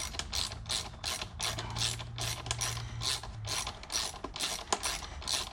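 Ratchet wrench clicking in a steady rhythm, about three clicks a second, as a bolt is worked loose.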